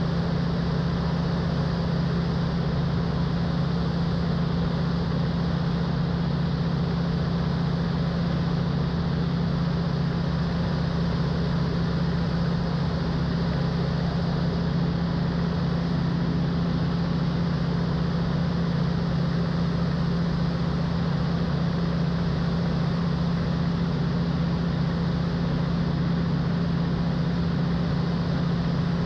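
Van's RV-12's Rotax 912 engine and propeller running steadily, heard inside the cockpit, with a strong low hum and even noise that do not change.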